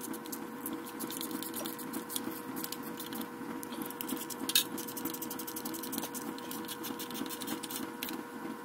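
Hand ratchet wrench clicking in quick runs as bolts are snugged down, over a steady background hum.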